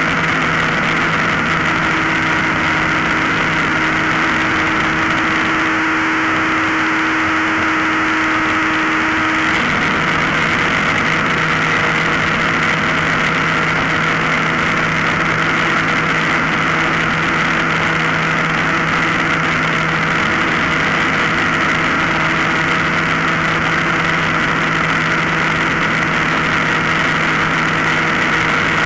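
Extreme Flight MXS 64-inch radio-controlled aerobatic plane's motor and propeller in flight, heard from the onboard camera: a steady drone with a hiss of rushing air, its pitch shifting slightly twice.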